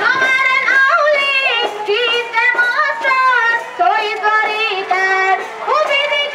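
A high voice singing a slow melody in phrases, with long held notes that bend and slide between pitches.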